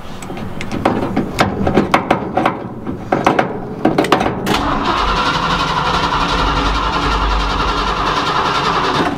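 1975 Ford F-100's engine being cranked on the starter through a loose, hand-wired ignition switch. A few seconds of uneven cranking strokes, then a steady run of about four seconds that cuts off abruptly near the end; the start attempt fails.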